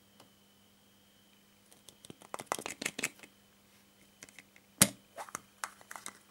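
Pink plastic surprise-egg capsule handled in the fingers: a run of plastic clicks and rubbing, then one sharp snap about three-quarters of the way through as the two halves pop apart, followed by lighter clicks of the open shell.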